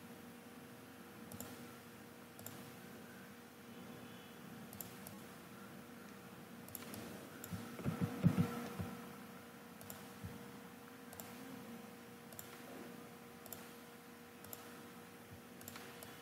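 Computer mouse clicks, sparse and irregular, over a steady low electrical hum. A short cluster of dull knocks about halfway through is the loudest sound.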